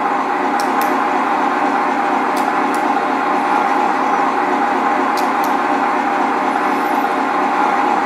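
A model Scania truck's electronic sound module playing a diesel engine idling steadily through its speaker, with a few brief high ticks near the start and middle.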